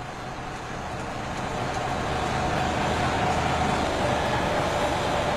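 Steady engine noise of heavy construction machinery, growing louder over the first few seconds.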